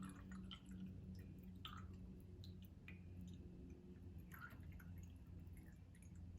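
Faint water drips and small light clicks around a Yixing clay teapot, over a steady low hum.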